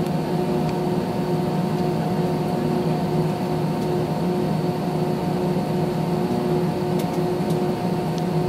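Steady drone inside an airliner cabin as it waits on the ground with engines running, a hum holding a few constant tones under a hiss of air.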